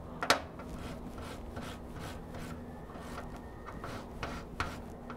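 Small wire brush scrubbing a steel drill-chuck jaw in quick, short rasping strokes, cleaning corrosion and grime from it. A sharp click comes about a third of a second in.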